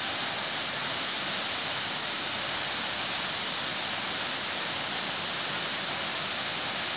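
A waterfall's steady rush of falling water, even and unchanging.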